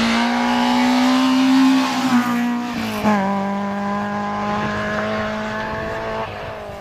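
Peugeot 106 S16 Group A rally car's 1.6-litre 16-valve four-cylinder engine running hard at high revs, the note climbing slightly, then dropping about three seconds in and holding lower as the car goes away and the sound slowly fades.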